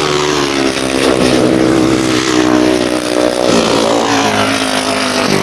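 Solo grasstrack racing motorcycles running at high revs as they race side by side. The engine pitch dips about two-thirds of the way through, as a rider eases off, then climbs again.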